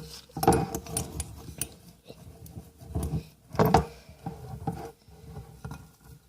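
Irregular knocks and clatters with some rubbing, a few louder bangs about three and a half seconds in.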